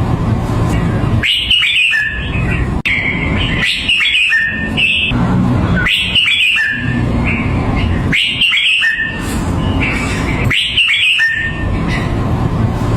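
Red-whiskered bulbul singing its short, warbled whistled phrase over and over, about five times roughly every two and a half seconds, over a steady low background noise.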